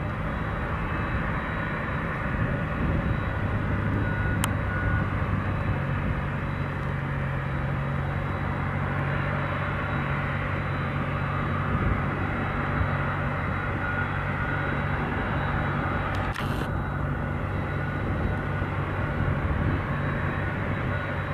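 Boeing 767-300F's twin jet engines running steadily at low taxi power: a constant hum with a faint high whine.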